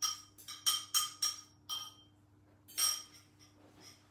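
Metal fork clinking and scraping against a small bowl to knock out the last of a wet cookie-batter mixture, about three ringing clinks a second for the first two seconds, then a short louder run of clinks just under three seconds in.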